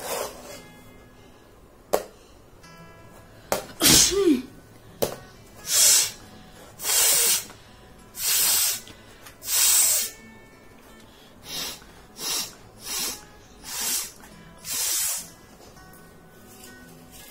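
A woman sneezing loudly about four seconds in. It is followed by a string of about nine sharp, hissing blasts of breath through the nose, the later ones shorter and quieter.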